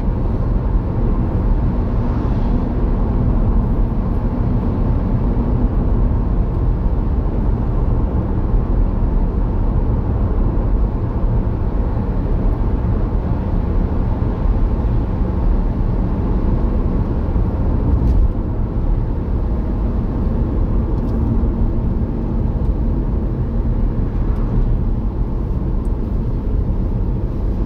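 Car driving on the road, heard from inside the cabin: steady road and engine noise, mostly a low rumble.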